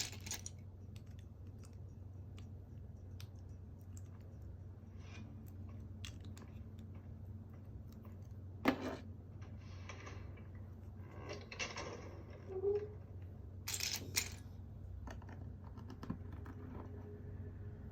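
Scattered light clicks and clinks of small hard objects, with a few short rustling bursts and two sharper clicks a little over halfway through, over a steady low hum.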